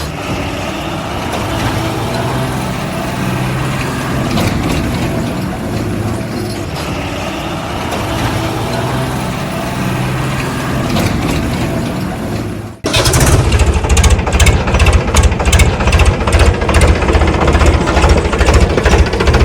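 Heavy vehicle diesel engine running steadily. About thirteen seconds in, it cuts off abruptly and a louder, rapidly pulsing sound takes over, at about four to five beats a second.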